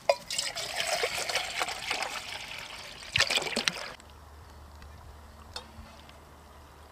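Water poured from a plastic bottle into a metal camping mug: a trickling, splashing fill with a louder splash a little after three seconds. About four seconds in it stops abruptly, leaving only faint outdoor background.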